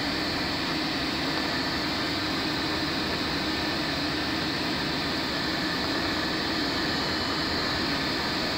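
Steady rushing of air and a constant drone inside a glider's cockpit while it is aerotowed.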